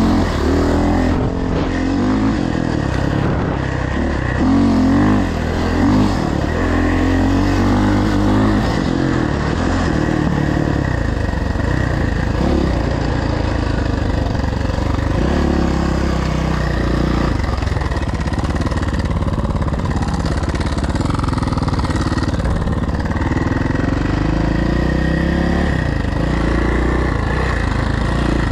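Suzuki dirt bike engine being ridden hard, its pitch climbing and dropping over and over as the throttle is opened and closed.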